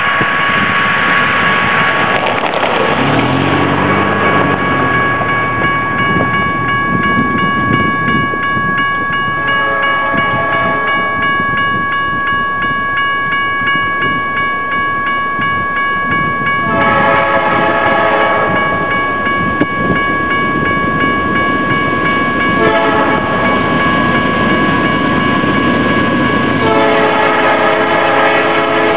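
Approaching freight locomotive's air horn sounding the long-long-short-long grade-crossing signal, the first blast about a third of the way in and the last long blast near the end, over the steady ringing of the crossing-signal bell.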